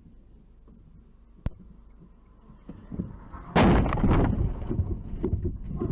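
A vehicle collision: a sudden loud impact bang about three and a half seconds in, followed by a jumble of knocks and rumble. Before it, a single sharp click.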